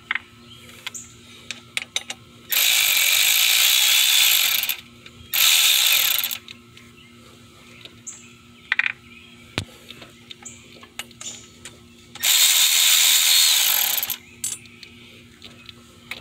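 A ratchet wrench clicking fast in three spells, about two seconds, one second and two seconds long, spinning out the loosened bolts of a truck's water pump pulley. Light clinks of metal tools come between the spells.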